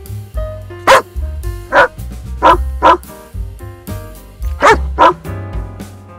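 A large dog barking six times, singly and in quick pairs, over background music with a steady bass beat.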